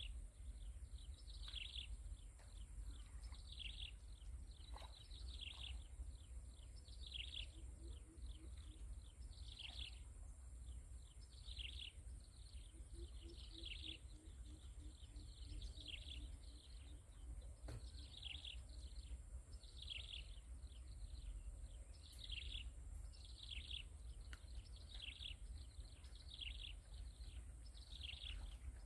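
A bird calling over and over, a short falling note about once a second, kept up steadily.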